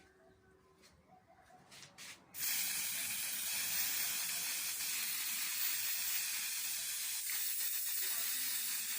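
Spray paint hissing: two short puffs a couple of seconds in, then one long steady burst of spray from about two and a half seconds in.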